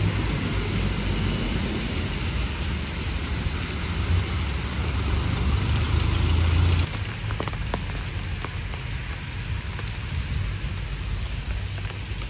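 Steady rain falling, heard as an even hiss. A low rumble underneath cuts off suddenly about seven seconds in, after which the rain goes on with a few drips ticking.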